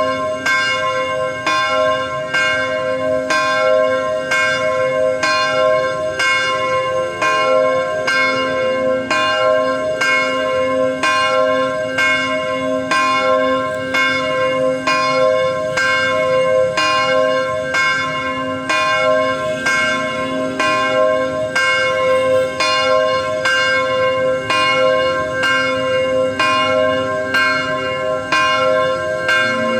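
Church bell ringing steadily, struck about twice a second, each stroke ringing on into the next so the tones overlap.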